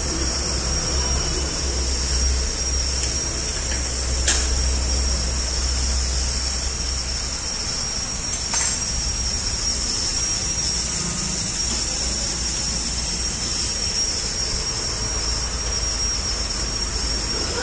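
Shrink-film packaging machine running with a steady whirring hum and a constant high-pitched whine, with two sharp clicks, about four and eight and a half seconds in.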